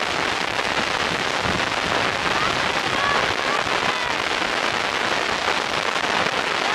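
Steady crackling hiss on the microphone, with a few faint, short distant shouts from rugby players about two to four seconds in and again near the end.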